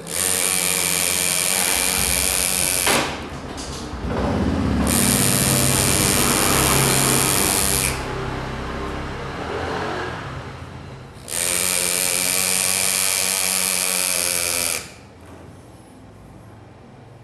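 Pneumatic hand engraver (Andu air engraver) hammering its graver into a metal Harley-Davidson engine cover: a dense, high buzzing hiss that starts and stops in bursts of a few seconds, about three times, going much quieter near the end.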